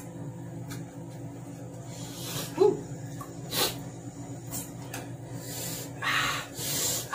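Eating at a table: a metal fork clicking against a plate as pieces of fried meat are cut and lifted, with mouth sounds of eating and a few loud, breathy exhalations near the end.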